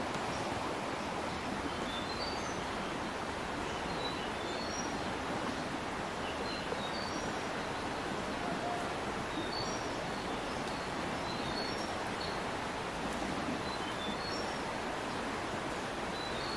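Forest ambience: a steady, even hiss with small birds chirping in short, high notes, scattered in little runs every second or two.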